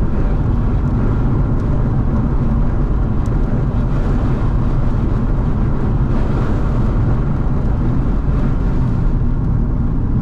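Car engine and road noise heard from inside the cabin while driving, a steady low rumble with no clear change in revs.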